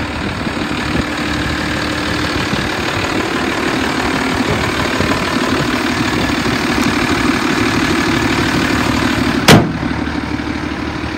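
1988 Ford F-800's 7.8-litre diesel engine idling steadily, a little louder in the middle. One sharp thump sounds near the end, louder than the engine.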